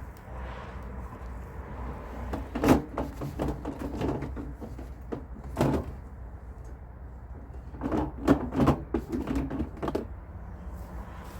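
Knocks and clunks of a van fridge being worked loose and pulled out of the cabinet it is wedged into: a loud knock about three seconds in, another just before six seconds, then a quick run of clunks near the end. A low steady hum runs underneath.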